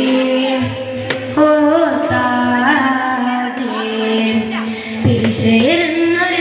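A boy singing a madh song (devotional praise of the Prophet) into a microphone through a stage loudspeaker, holding long notes that bend and turn between pitches. A low steady hum runs under the voice from about half a second in.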